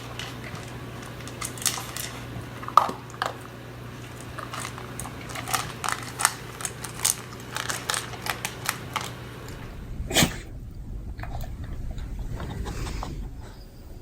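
A beagle chewing, with irregular wet clicks and smacks for most of the stretch, one louder sound about ten seconds in, and a softer rustling stretch near the end.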